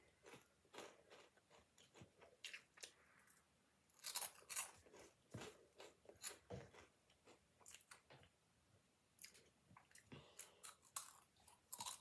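Faint crunching and chewing of a Flaming Hot Monster Claws snack, a ragged run of crisp bites and crunches, loudest about four seconds in.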